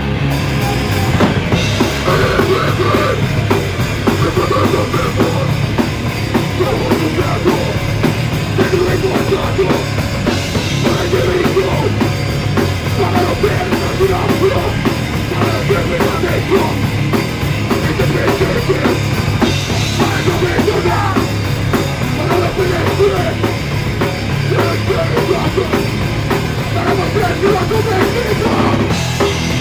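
Live rock band playing a fast, loud song with drum kit and full band, recorded on a mobile phone in the crowd.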